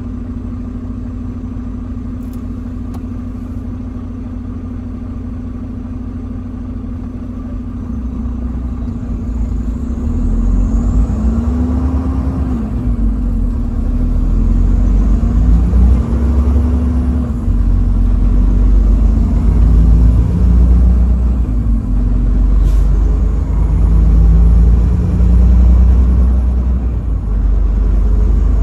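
Truck engine running steadily at a low idle. From about eight seconds in it grows louder as the truck pulls away, its pitch climbing and dropping again several times through the gear changes over a heavy low rumble.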